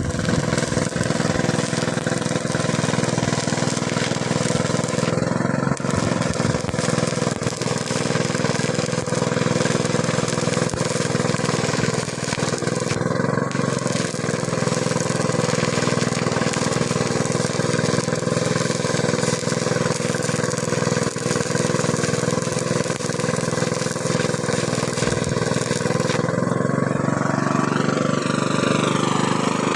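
A motor or engine running steadily, with a low hum and a hiss over it. Near the end a thin tone rises slowly.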